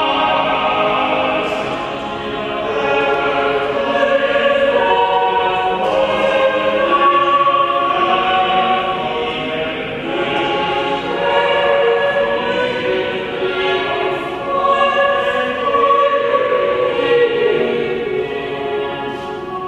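A small mixed choir singing slow harmony in several parts, with long held notes.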